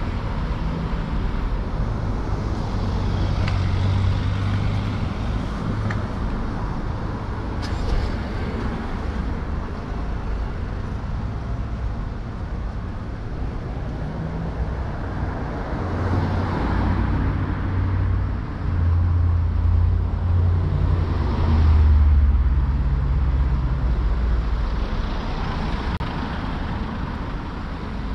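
Street traffic on a city street: a steady low rumble of cars, with vehicles passing by twice, swelling and fading, in the second half.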